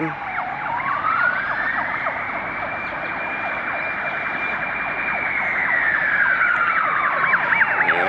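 Fire engine sirens sounding. One siren wails slowly: it rises over about two seconds, holds at a high pitch, then slowly falls. Near the end a second, fast-warbling siren joins it.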